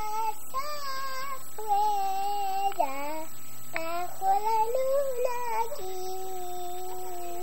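A young girl singing a slow song in Spanish, alone and without accompaniment, in a high voice with long held notes.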